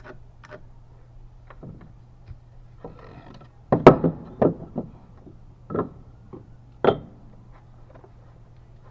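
Several sharp knocks of wood on wood, like lumber pieces being handled and struck: a loud knock about four seconds in, then four more spread over the next three seconds.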